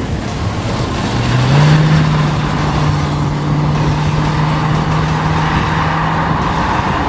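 1972 Ford Mustang engine running: its note rises about a second in, then holds steady.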